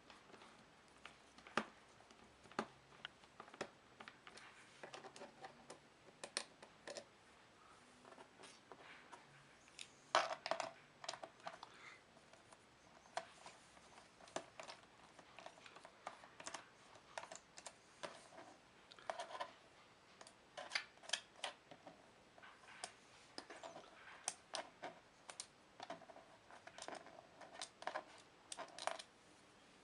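Faint, irregular light clicks and taps of small hand work on a laptop: a screwdriver and small screws being handled against the plastic case during disassembly.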